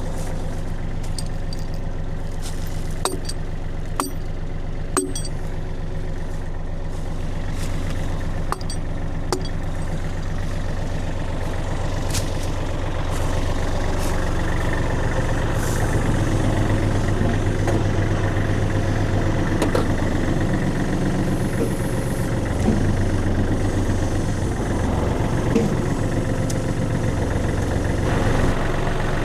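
Tractor backhoe's diesel engine idling steadily, with several sharp knocks in the first dozen seconds as the log tongs are struck into place. From about fourteen seconds the engine runs louder as the backhoe works.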